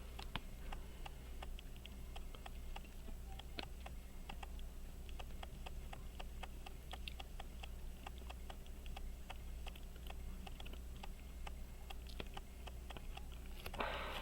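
Small, irregularly spaced metal clicks and taps of tools working on a pocket watch movement during disassembly, over a steady low hum. A brief louder rustle comes near the end.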